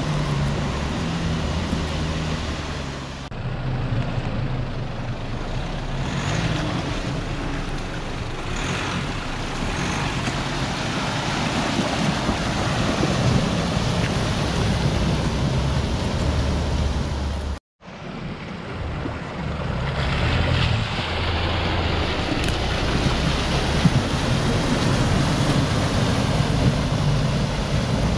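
Fast floodwater rushing and splashing as 4WD utes drive through a swollen creek crossing, their engines running underneath. The sound cuts out sharply for a moment a little past the middle, then the rushing resumes.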